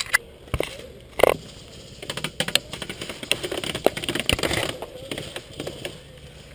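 Irregular close-up clicks, knocks and scraping, the loudest knock about a second in, as the head-mounted camera rubs and bumps against a weathered wooden cable spool.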